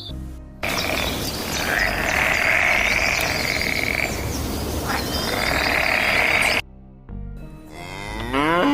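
A loud, harsh, noisy sound lasting about six seconds that cuts off abruptly, then a cow starts mooing near the end, its call rising in pitch.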